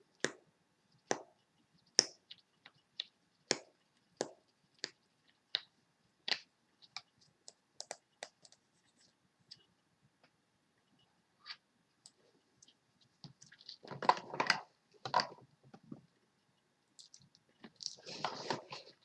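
Plastic makeup containers and tools being handled: a string of irregular sharp clicks and taps, then two short stretches of scuffing, rustling noise about fourteen and eighteen seconds in.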